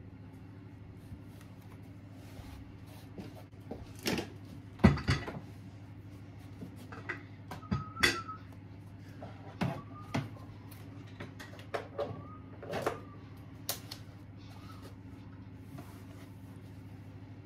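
Household items being handled and set down on top of a cube storage shelf: irregular knocks and clatters, the loudest a little under five seconds in, with a few short squeaks, over a steady low hum.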